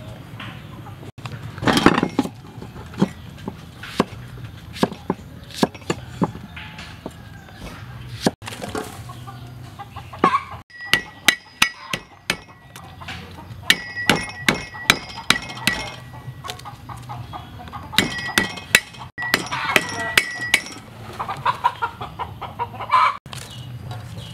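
Cleaver strokes on a thick round chopping board, a run of sharp knocks at about three a second through the middle of the stretch, as lemongrass stalks are cut. Chickens cluck in the background.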